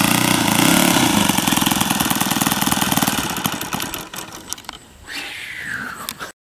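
Model airplane's YS-120NC glow engine idling, its firing strokes growing slower and fainter over a few seconds as it dies away. A short falling tone follows near the end, and the sound then cuts off abruptly.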